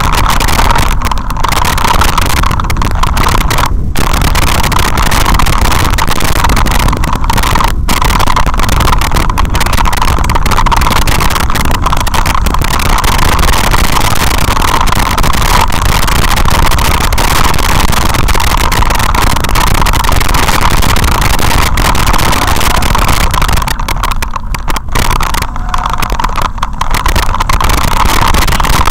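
Loud, steady rushing noise of a mountain bike descending a rough, stony dirt track: wind buffeting the microphone mixed with the rattle of riding over the stones. It eases slightly for a few seconds near the end.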